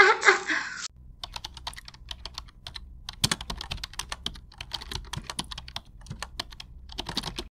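Rapid, irregular clicking and tapping of small hard objects, in clusters with short gaps, cutting off suddenly near the end.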